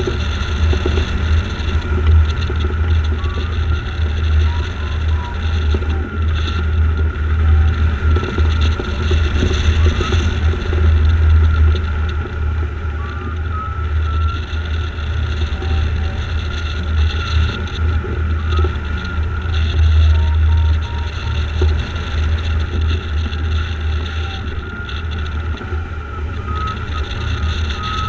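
Airflow buffeting the microphone of a camera on a hang glider in flight, a loud steady low rumble with a hiss over it. Faint short rising beeps, typical of a flight variometer, come and go through it.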